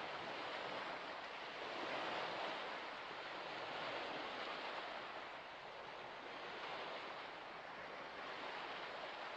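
Soft, steady rushing of small waves washing along a shallow lake shore, swelling and easing every couple of seconds.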